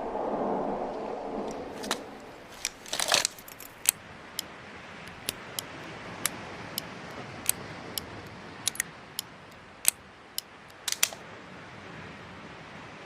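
The fading echo of a Smith & Wesson Model 27 revolver shot, followed by a string of sharp metallic clicks and clacks from the revolver being handled. The clicks come irregularly, about one or two a second, with a small cluster about three seconds in and another near eleven seconds.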